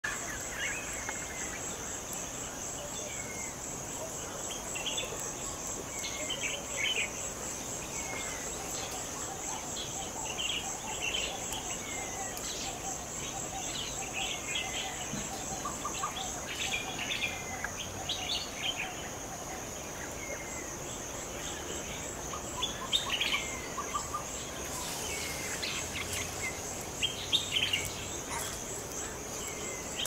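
West African tropical forest soundscape: a steady high-pitched insect trill runs underneath birds calling, with short falling whistles and chirps repeated every couple of seconds and a few louder chirps near the end.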